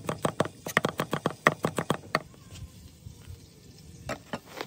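Large cleaver-style knife rapidly chopping garlic on an end-grain wooden cutting board, fast knocks of blade on wood, about nine a second, for around two seconds. The chopping then stops, with two single knocks near the end.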